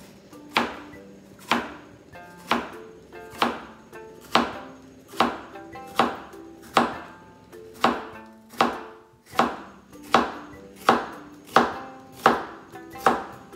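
A kitchen knife slicing a halved, seeded bitter melon into pieces about a centimetre thick, each cut ending in a sharp knock on the cutting board. The cuts come at a steady pace of about one a second and quicken slightly near the end.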